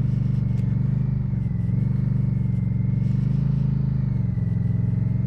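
Indian Scout's liquid-cooled V-twin engine running steadily under way, its note dipping slightly twice.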